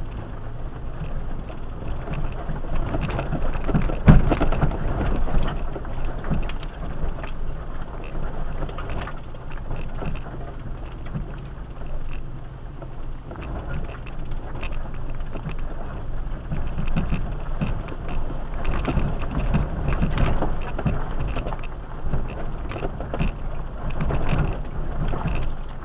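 A four-by-four SUV crawling a rough trail: a steady low engine and drivetrain rumble with frequent knocks and crunches as the tyres and suspension go over rocks. The sharpest jolt comes about four seconds in, and there is a run of knocks near the end.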